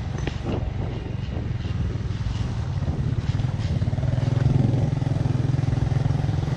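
Motorcycle engine running steadily while riding, growing a little louder about four to five seconds in.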